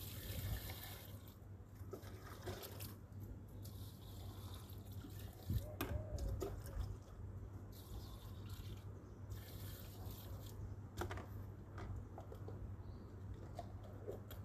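Water poured from a plastic dipper onto garden soil, splashing and trickling in three separate pours.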